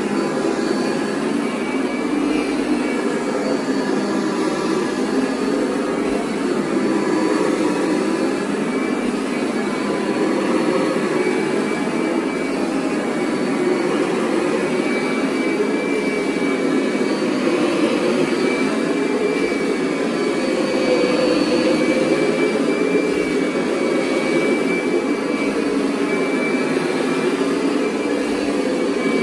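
Kirby G5 upright vacuum running with its carpet shampoo system attached: a steady, loud motor drone with a thin high whine. The drone wavers slightly in level as it works the rug. With the shampoo tank hooked where the bag normally goes, the motor acts as a blower that foams the shampoo into the carpet while the brush agitates it.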